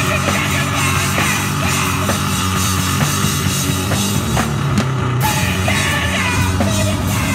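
A live rock band playing loud and heavy: distorted amplified guitar over a drum kit keeping a steady, driving beat.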